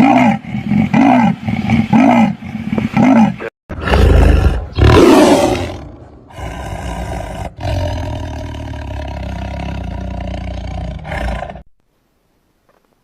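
A sequence of different animal calls, joined by abrupt cuts. First comes a run of short calls about twice a second, each rising and falling in pitch. Then a loud, harsh call lasts about two seconds, followed by a steady droning call that cuts off suddenly about a second before the end.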